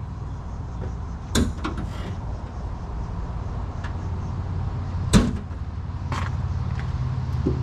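A steady low hum, like a motor running, with sharp knocks about one and a half and five seconds in; the second knock is the loudest. The hum grows louder near the end.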